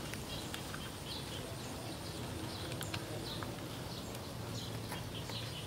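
Outdoor rural ambience: small birds chirping over and over against a steady background hiss, with a few faint ticks.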